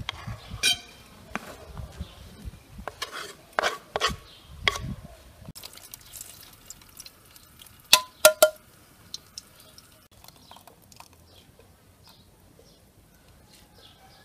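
Kitchen work sounds: a knife cutting and tapping on a wooden chopping board in irregular strokes, then a metal can knocking against a metal mesh strainer in three sharp, ringing clinks about eight seconds in, followed by faint light clatter.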